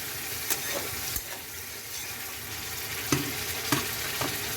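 Chicken sizzling as it is sautéed in oil and spiced tomato-onion masala, with a spatula clicking against the pan about five times as it is stirred.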